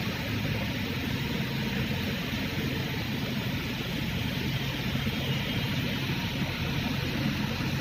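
Forklift engine running steadily with a low hum as the forklift backs away carrying a loaded one-tonne bulk bag.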